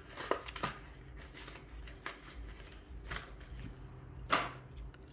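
Plastic blister packaging of a Hot Wheels diecast car being handled: a few sharp plastic clicks and crackles, the loudest about four seconds in.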